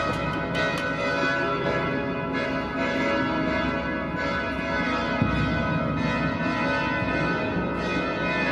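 Dense, sustained bell-like metallic ringing, many tones sounding together at a steady level, with a few faint clicks.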